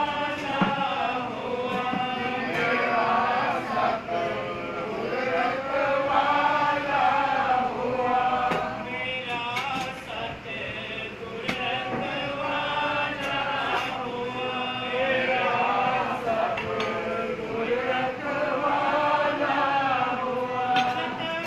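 Many men chanting together in unison, a devotional chant whose melody rises and falls without a break.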